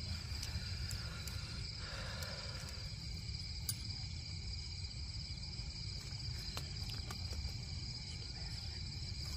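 Crickets chirring in a steady high trill, over a steady low rumble, with a few faint clicks.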